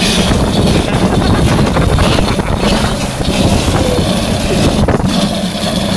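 Wind buffeting the microphone over the steady rumble and road noise of a moving vehicle towing a fridge along the road.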